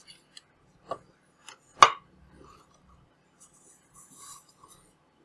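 Small hard plastic and circuit-board parts of an opened carbon monoxide alarm being handled: a few sharp clicks and taps, the loudest about two seconds in, then a short soft scrape near four seconds.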